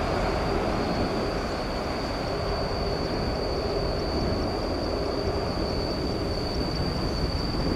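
Steady roar of a Boeing 747's jet engines as it rolls down the runway after touching down, with a steady high-pitched whine throughout.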